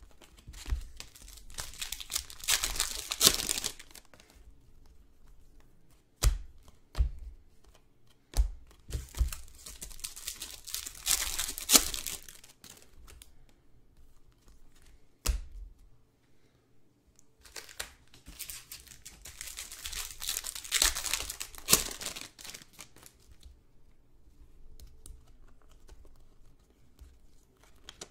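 Wrappers of Prizm basketball trading-card packs being torn open and crinkled, in three bouts a few seconds apart, with a few light knocks in between.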